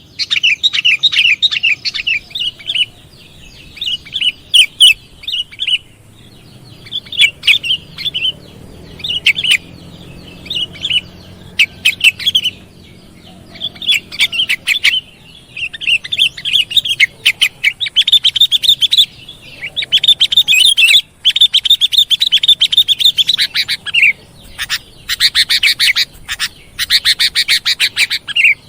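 Sooty-headed bulbul (kutilang) calling: repeated bursts of rapid, high chirping notes with short pauses between, the runs growing longer in the second half.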